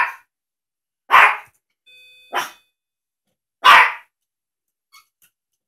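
Teacup Yorkshire terrier barking at a cat on a laptop screen: four short barks about a second and a quarter apart, the third softer than the others.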